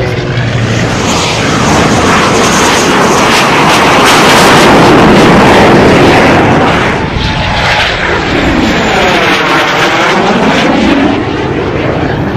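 Aircraft passing low and close: a loud engine noise builds to a peak, then sweeps in tone as the aircraft goes by.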